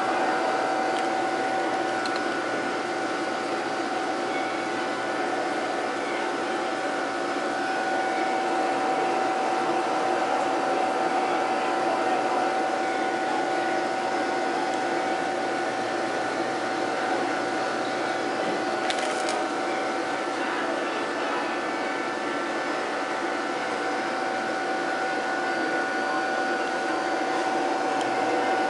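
Steady whirring hum of fish-store tank equipment such as pumps and filtration, with a constant mid-pitched whine running through it and one faint click about two-thirds of the way through.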